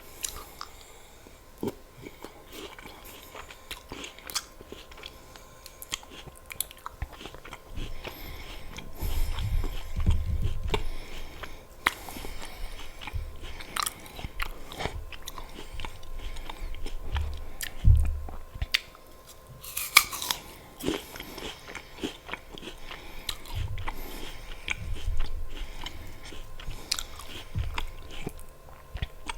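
Close-miked bites into crisp apple with peanut butter and steady chewing, with sharp crunches scattered irregularly throughout and the loudest one about twenty seconds in.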